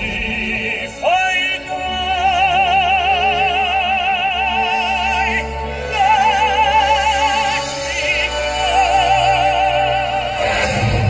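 A solo male singer in an operatic stage style holding long notes with wide vibrato over musical accompaniment, played back through a car's audio system. The voice comes in about a second in with a quick upward slide.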